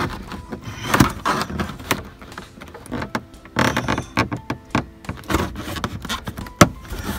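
Plastic dash pad being pried and worked loose by hand from its snap-in clips: irregular knocks, creaks and scrapes of hard plastic trim, with a sharp click near the end.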